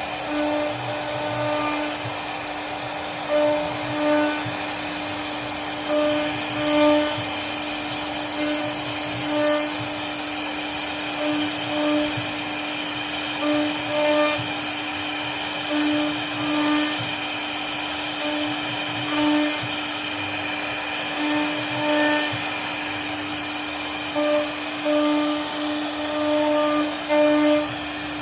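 CNC router spindle running with a steady high whine while the bit carves wood, the tone swelling briefly every second or two as the cut loads up.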